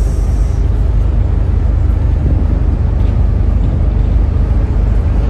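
Steady low rumble of a ferry's engines mixed with wind buffeting the microphone on the open deck.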